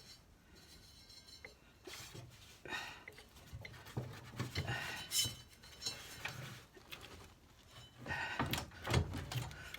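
Scattered metallic clinks, knocks and short scrapes of hand tools and loose metal parts, from work to free a stuck bolt on a Toro 265-6 garden tractor. The noises come more often near the end.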